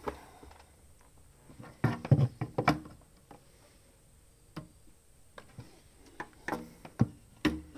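Scattered knocks and clunks as a spirit level is picked up, set down and shifted on a shelf, with a loud cluster about two seconds in and several more in the second half.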